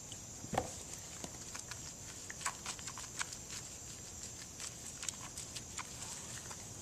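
Small wet splashes and squelching ticks of hands working shampoo into a kitten's wet fur in a tub of water. There is a brief low sound about half a second in.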